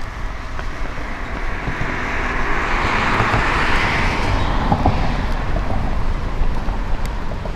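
A car passing by: its tyre and engine noise swells to a peak about three seconds in and then fades away, over a steady low rumble.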